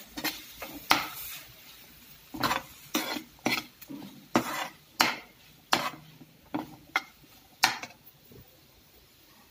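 Slotted steel spoon scraping and clinking against a metal pan while boiled potato cubes and peas are stirred: about a dozen irregular strokes that stop near the end.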